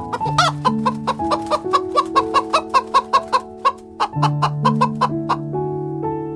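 Chickens clucking in a quick run of short clucks, about five a second, breaking off about four seconds in and then resuming for a few more.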